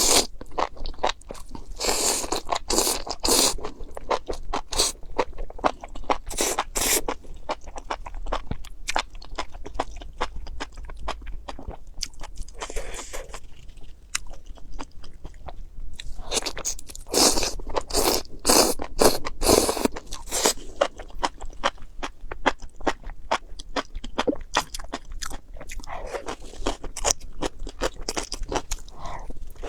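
Close-miked eating of crunchy food: bites and chewing with sharp crackling crunches, in louder clusters a couple of seconds in, around six seconds and again a little past the middle.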